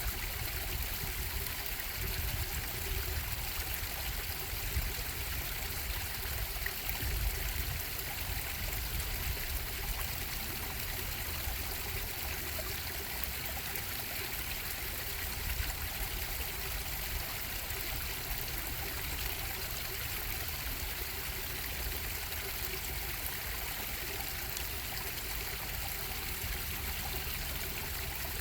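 A bubbling stream running steadily over rocks, a continuous rush of water with some low rumble.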